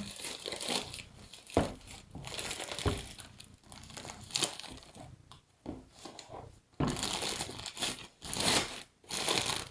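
Plastic packaging crinkling and rustling in irregular bursts as it is pulled open and handled, with a few sharp crackles; the handling gets busier and louder about two-thirds of the way through.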